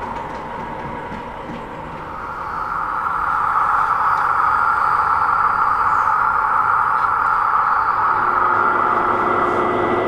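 A 00 gauge model diesel locomotive running with a steady engine sound, which grows louder about two seconds in as the train draws nearer. A lower steady tone joins near the end.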